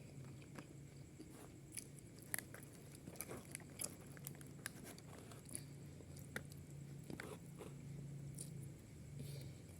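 A person chewing and biting food close to the microphone, with scattered short crunches and mouth clicks, faint over a low steady hum.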